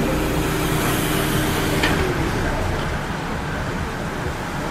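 Racing bicycles sweeping past over brick paving, their tyres and chains whirring, under a steady hum that stops about two seconds in.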